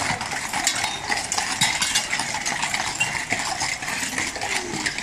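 Cavalry horses' hooves clip-clopping at a walk on stone paving, with many irregular sharp knocks and the metallic clinking of bits and curb chains.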